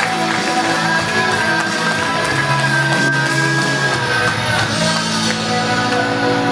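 A rock song with guitar and singing, with one long held note through the middle.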